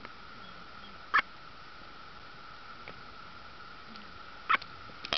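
Blue-footed boobies at their nests: two short, sharp calls, one about a second in and one near the end, over a steady faint high-pitched hum.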